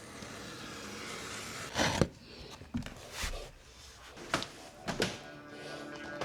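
Handling sounds: about half a dozen scattered knocks and clicks over a faint hiss, loudest about two seconds in and again in the last couple of seconds.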